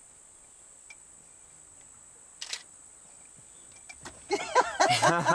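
Steady high-pitched drone of insects, with a single short click about two and a half seconds in. Near the end a person's voice breaks in loudly.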